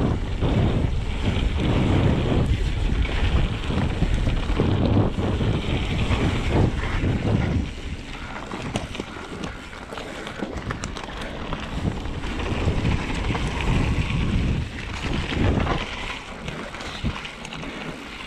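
Wind buffeting the microphone in heavy gusts that ease about eight seconds in, with a few faint light clicks near the end.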